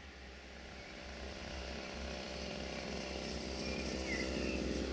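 Distant diesel train's engine rumble, swelling steadily louder as it approaches.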